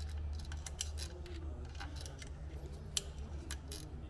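Irregular light metallic clicks and scrapes as a slim magnetic pickup tool is worked inside a threaded sump plug hole, fishing for the broken-off tang of a Helicoil insert. A steady low hum runs underneath.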